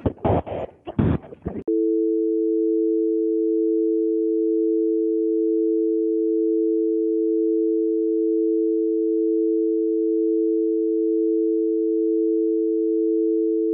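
Steady North American telephone dial tone, two low tones sounding together without a break, cutting off suddenly at the end. It starts about a second and a half in, after a short burst of irregular crackling noise.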